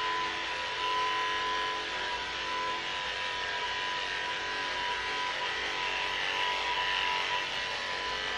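Electric dog grooming clippers running steadily with an even whine as they shave a Maltese's coat.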